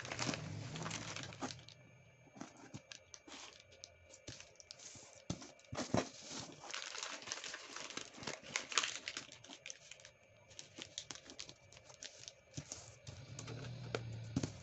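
A sheet of origami paper rustling and crinkling as hands fold it and press down the creases, with irregular sharp crackles as folds are flattened.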